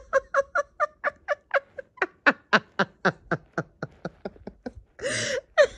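A person laughing in a long run of short, quick "ha" pulses, about four or five a second, that tail off towards the end. A longer, louder vocal sound follows near the end.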